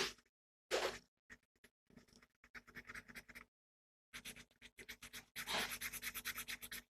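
Rapid scratching or scraping strokes, several a second, after two louder scuffs near the start.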